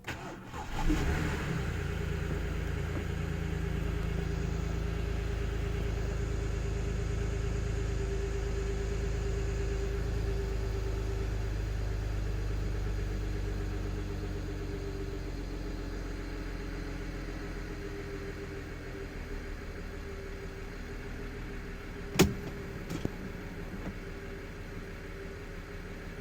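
BMW N53B30 straight-six starting from cold: it cranks briefly, catches about a second in, and runs at a steady fast cold idle that settles gradually lower from about halfway through. A single sharp click comes near the end.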